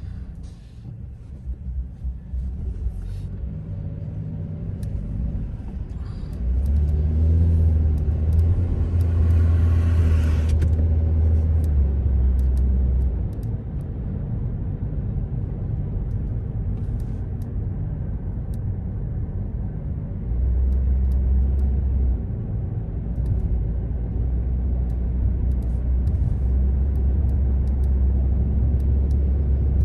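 Car driving on city streets: a continuous low road-and-engine drone that grows heavier in stretches, with the engine note rising for a few seconds about a quarter of the way in. Faint scattered ticks and rattles run through it.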